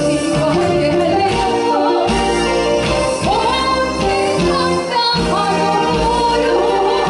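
A woman singing live into a handheld microphone over instrumental accompaniment, holding notes that glide and waver in pitch.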